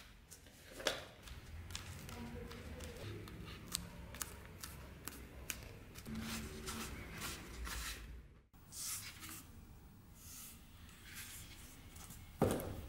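Hands handling and pressing glued leather onto a wooden scabbard: soft rubbing with scattered small clicks and taps. A single sharp knock near the end.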